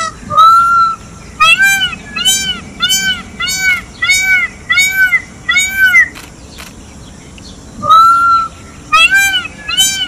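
Indian peafowl calling loudly: a drawn-out call, then a rapid run of about seven short, arching calls roughly 0.7 s apart. After a pause of nearly two seconds another drawn-out call comes, followed by more short ones.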